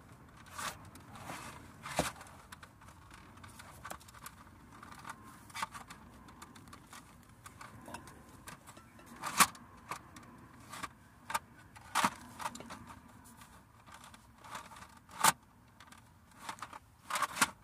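Plastic portable collapsible toilet being handled while its lid is worked at: scattered clicks, taps and scrapes of hard plastic, with a few sharper knocks.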